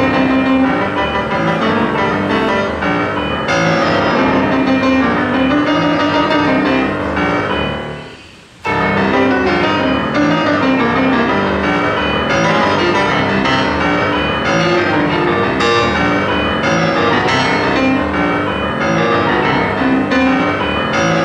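Grand piano played solo: a continuous stream of many quick notes. About eight seconds in the playing stops briefly, the notes dying away, then starts again suddenly at full volume.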